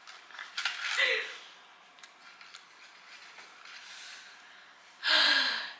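A young woman's breathy sounds while tasting a Bean Boozled jelly bean: a brief voiced breath about a second in, then a loud, short, forceful burst of breath like a snort near the end, with faint clicks of the candy box between.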